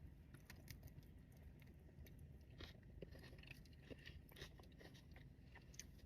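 Faint chewing and crunching of a mouthful of crunchwrap dipped in consommé: a scatter of small, irregular crunches.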